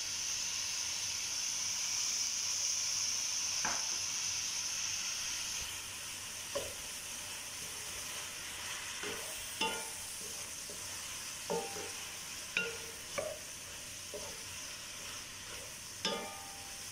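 Chicken pieces, diced tomatoes and spice powders sizzling in a frying pan. The hiss is stronger for the first six seconds or so and then eases a little. Through the second half a wooden spatula stirring the food knocks and scrapes against the pan about ten times.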